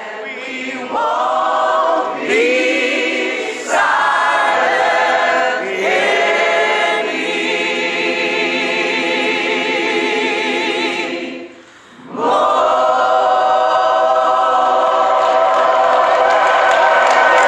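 A choir singing a cappella in long held notes with vibrato. The singing drops away briefly about twelve seconds in, then the voices come back in.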